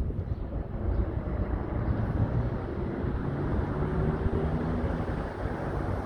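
Steady low outdoor rumble of background noise, with a faint hum in it.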